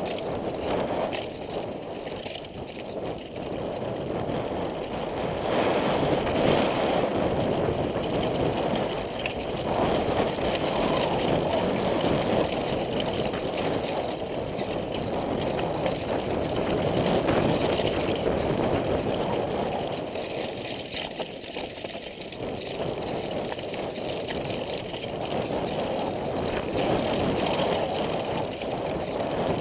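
Downhill mountain bike descending a rocky dirt trail, heard from a helmet camera: a continuous rushing noise of the ride that swells and dips, with frequent small knocks and rattles as the bike goes over stones and bumps.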